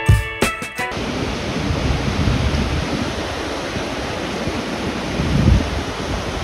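Ocean surf rushing steadily, with wind noise on the microphone and a louder low swell about five seconds in.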